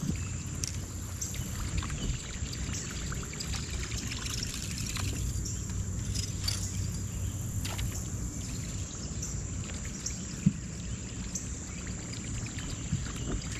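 Ambience on a fishing boat on a river: a steady low rumble with water trickling against the hull, scattered small clicks, and one sharp knock about ten seconds in.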